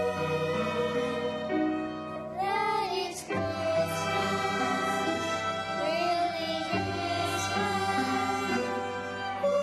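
Violins playing a slow melody of long held notes, with slow pitch bends.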